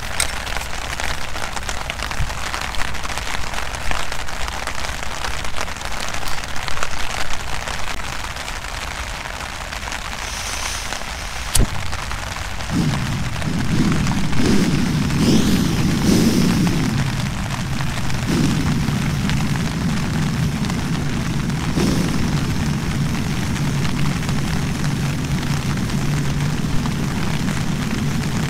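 Rain falling steadily; about halfway through there is a sharp click, and then a camping stove's burner lights and burns with a steady low rush that continues, its flame fluttering at first.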